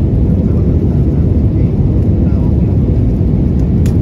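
Airliner jet engines and rushing airflow heard inside the cabin during the climb after takeoff: a loud, steady, deep roar. A single short click comes near the end.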